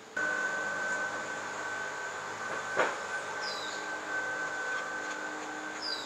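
A steady high-pitched drone with fainter lower hum lines beneath it, starting abruptly at the outset. A single sharp knock comes about three seconds in, and there are two short, high bird chirps.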